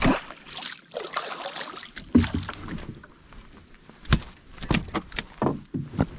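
A fish spear plunged into shallow water from a boat, with splashing water for a few seconds, then several sharp knocks against the boat about four seconds in.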